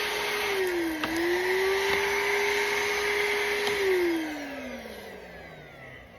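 Small high-speed electric motor whining steadily, dipping in pitch briefly about a second in as if loaded, then switched off and winding down, its whine falling steadily in pitch and fading out.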